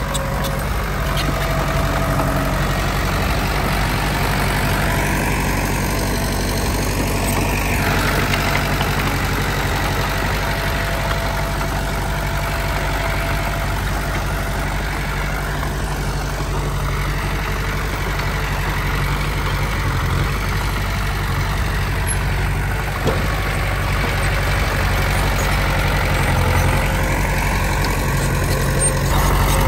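Heavy earthmoving machine's engine running steadily, with a higher whine rising and falling now and then and a single knock about two-thirds of the way through.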